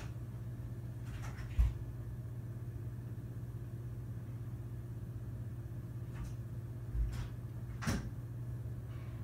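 Steady low hum of hotel room tone, broken by a few thumps and knocks: a heavy low thump about one and a half seconds in, then a softer thump and a sharper knock near the end.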